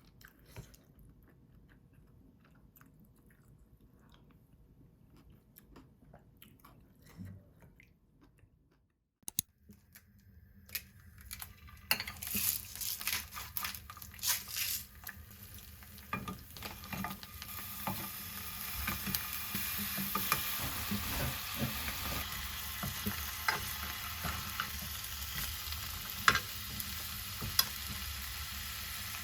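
Food frying in a pan: a steady sizzle that builds up over the second half, with the sharp clicks and scrapes of a utensil stirring. This follows a quiet stretch of faint clicks.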